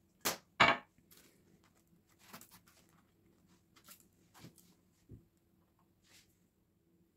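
Crusty bread lids being handled: picked up off a parchment-lined baking tray and set on top of bread bowls. Two sharp scraping clicks in the first second, then a scatter of softer rustles and taps.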